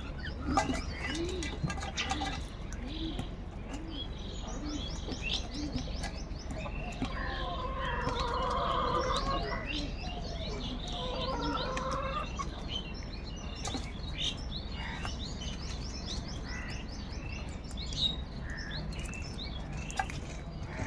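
A crowd of birds calling over one another, crows among them, with many short chirps throughout. A longer, louder call stands out about eight seconds in, and another a few seconds later.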